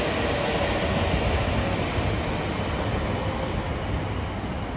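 Electric commuter train running past on the rails, with a steady rumble of wheels and a thin high whine that slowly falls in pitch and fades out near the end as the last car goes by.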